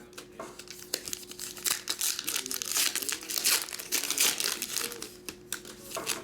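Trading-card pack wrappers crinkling and crackling in irregular bursts as they are handled and opened.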